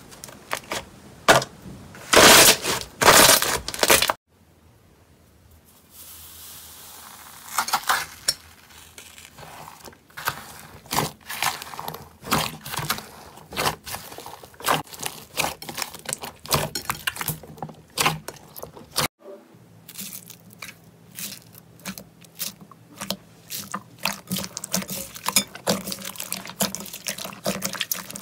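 Hands squeezing, stretching and kneading slime: wet squelching with a stream of sharp air-bubble pops and crackles. A louder burst of squelching and tearing comes about two to four seconds in. Near the end the crackling turns quicker and denser as icy slime is worked in a bowl.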